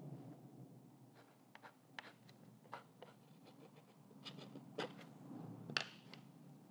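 Faint, irregular scratching and ticking of a hand-held drawing tool on a dry, joint-compound-textured painting surface: a dozen or so short strokes, the sharpest about five and six seconds in.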